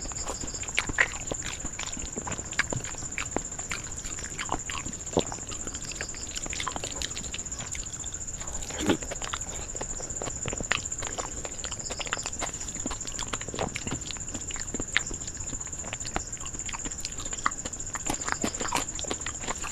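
Close-up eating sounds: wet mouth clicks and smacks of a person chewing mouthfuls of rice and curry eaten by hand, with fingers mixing food on a steel plate, over a steady high-pitched whine.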